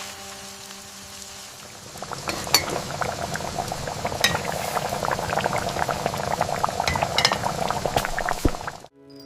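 A pot of food bubbling at a boil, with a few sharp clinks of a spoon against the pot. The bubbling starts about two seconds in and cuts off abruptly near the end.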